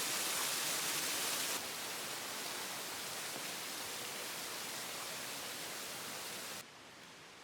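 Steady rushing of a mountain stream in a gorge. The level drops abruptly about a second and a half in and again near the end.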